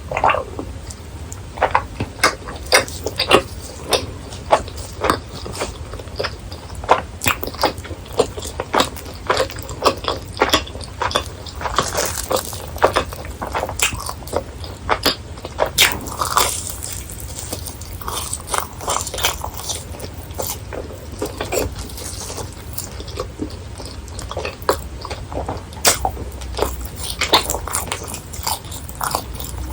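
Close-miked biting and chewing of crispy deep-fried snacks: a dense, uneven run of sharp crunches.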